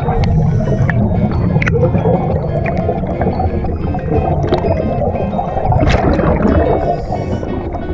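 A scuba diver's exhaled air bubbling underwater close to the microphone: a steady loud gurgle of rising bubbles with scattered small clicks.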